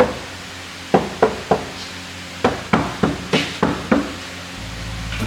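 Knocking on a Toyota Land Cruiser 70 series door panel freshly lined with sound-deadening insulation, as a test of how the insulated door sounds. About ten short knocks come in three groups: one, then three, then six.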